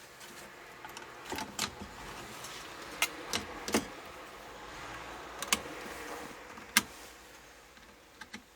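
Hands handling a TV power supply board and its cable connectors: a series of sharp clicks and knocks, about eight spread over several seconds, with a light rustling between them.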